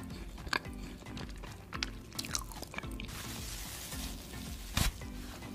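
Background music with a steady beat over close-miked mouth sounds of cotton candy being bitten and chewed: several sharp wet clicks, and a soft rustling hiss between about three and five seconds in as the candy is pushed into the mouth.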